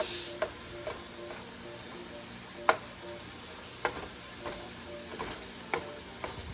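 Ground meat sizzling in a frying pan while a utensil stirs and breaks it up, knocking and scraping against the pan in about eight irregular clicks over the steady frying hiss.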